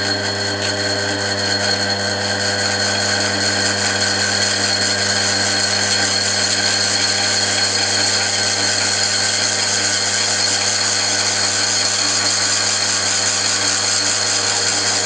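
Tom Senior milling machine running under power feed, its cutter milling a flat along an M10 threaded bar. A steady motor and gear hum with a hissing cutting noise, which grows louder over the first few seconds and then holds steady.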